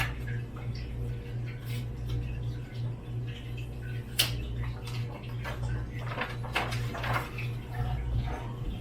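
Scattered clicks, taps and rustles of hands handling a newly unboxed board and its packaging, with one sharp click about four seconds in, over a steady low hum.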